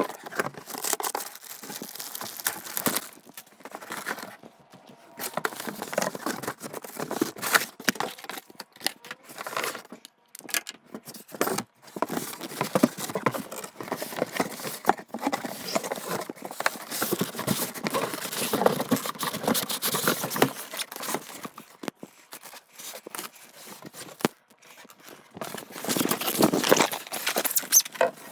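A cardboard box being unpacked with a knife: packing tape slit, cardboard and plastic wrapping torn, crinkled and scraped in irregular bursts with short pauses.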